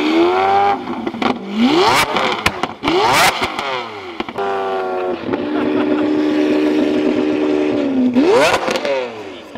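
Lamborghini Aventador LP700-4's V12 revving through an aftermarket Fi Exhaust valved exhaust, very loud: a string of quick blips with sharp cracks between them, then a rev held steady for about three seconds that falls away, and one more sharp blip near the end.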